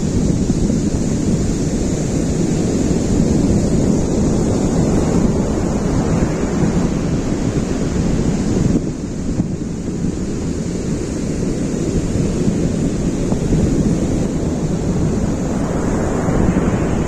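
Sea surf washing onto the shore in a steady rush, with wind buffeting the microphone; the level dips briefly about halfway through.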